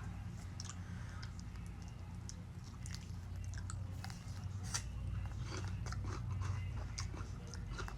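A person chewing a bite of crisp green apple close to the microphone, with irregular crunches and mouth clicks.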